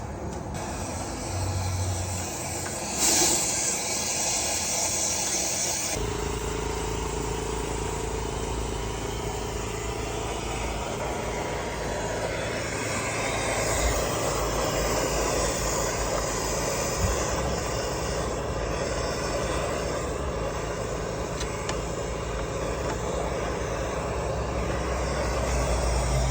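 A motor runs steadily with a low hum and a hiss of rushing air. A louder burst of hiss comes about three seconds in and stops abruptly a few seconds later.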